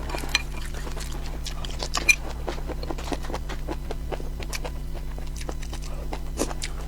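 A person eating, chewing food close to the microphone: a run of irregular small clicks and smacks over a steady low hum.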